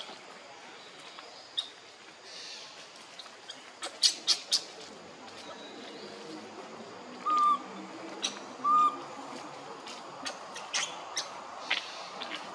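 Animal calls: scattered sharp high chirps and clicks, with a cluster about four seconds in, and two short clear calls about a second and a half apart near the middle, over a steady hiss.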